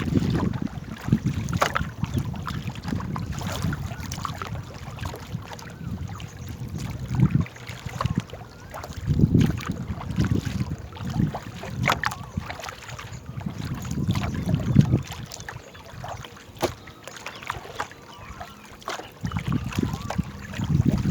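Wind rumbling in gusts on the microphone over the sounds of a small boat being paddled on water, with scattered knocks.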